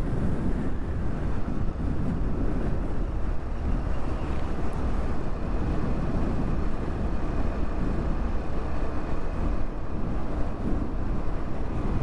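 Steady wind rush on the microphone with a motor scooter's engine and road noise while riding.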